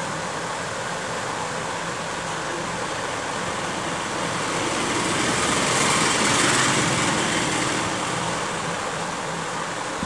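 Audio from a video playing through a smartphone's loudspeaker during a speaker test: a steady rushing noise that swells louder about five to eight seconds in.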